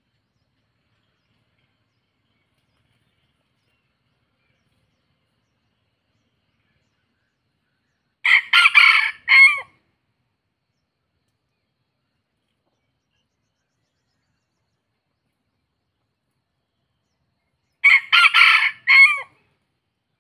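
Junglefowl-cross rooster crowing twice, about ten seconds apart. Each crow is a short, clipped phrase of about a second and a half, broken into a few pieces and ending in a falling note.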